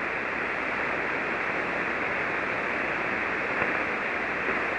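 Steady receiver hiss of band noise from an amateur radio transceiver in SSB receive mode on the 40-metre band, cut off sharply above the voice passband. No signal is on the frequency.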